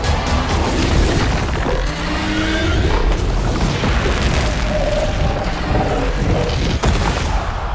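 Cinematic battle sound effects: deep booms and rumbling from explosions and a charging army, over dramatic music, with a sharp hit about seven seconds in.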